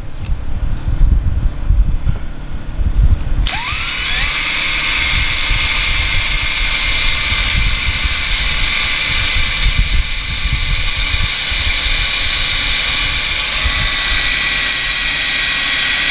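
Cordless drill spinning up about three seconds in with a rising whine, then running steadily as it drives a self-tapping screw into the van's sheet-metal roof.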